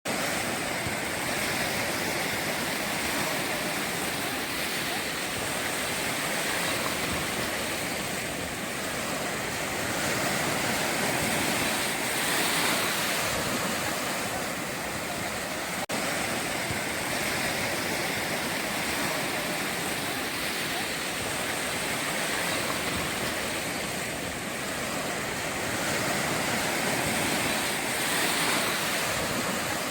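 Sea waves breaking on a shore: a continuous rush of surf that swells and eases every few seconds.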